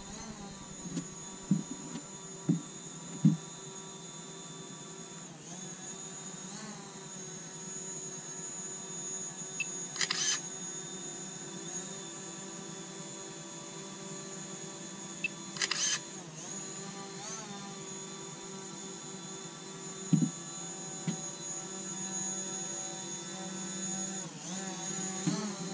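Small quadcopter drone flying, its propellers giving a steady buzzing hum of several tones that bends in pitch a few times as it manoeuvres. A few low thumps come near the start and near the end.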